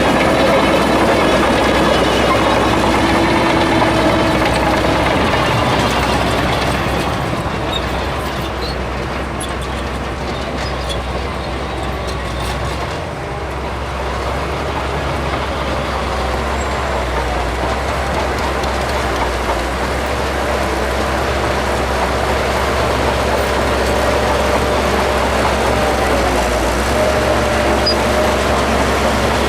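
Shantui DH17C2 crawler bulldozer working, its diesel engine running steadily with a note that wavers in pitch. It eases off for several seconds in the middle and then comes back up under load.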